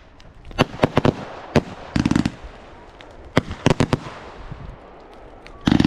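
Fireworks going off: single sharp bangs and several short clusters of rapid crackling reports, spaced irregularly.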